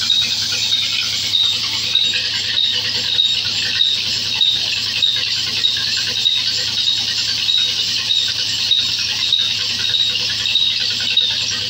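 Large wheel band saw cutting through a log: a steady hiss from the blade with a high squeal that pulses about every two-thirds of a second.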